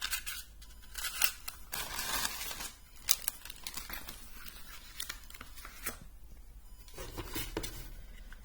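Paper crinkling and tearing as a tool is unwrapped from its packaging, in irregular bursts with a few light clicks and one sharp knock about three seconds in.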